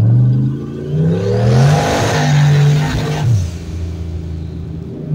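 Turbocharged 351 Windsor V8 in a 1986 Fox body Mustang under hard acceleration, heard from inside the cabin: the revs climb, dip briefly about a second in, climb again, then fall away a little past three seconds in.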